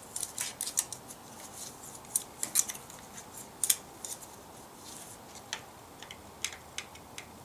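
Irregular light metallic clicks and taps of a wrench working the jam nut on a rocker-arm adjusting screw during a valve-lash adjustment on an International Harvester 354 engine. The clicks come thick for the first few seconds, then thin out.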